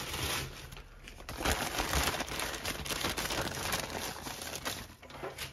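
Thin plastic wrapping crinkling and rustling as it is handled and pulled off a small boxed model locomotive, with a steady run of small crackles and rustles.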